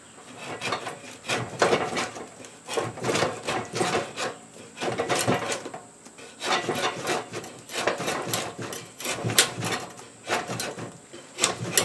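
Old draw knife peeling bark off a red cedar log: repeated short scraping pulls, roughly one a second, with sharp clicks as the blade bites and strips of bark come away.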